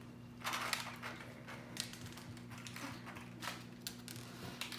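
Small plastic pieces handled on a tabletop: irregular light clicks and rattles of beads, plastic shells and clear plastic containers while slime is decorated, over a faint steady low hum.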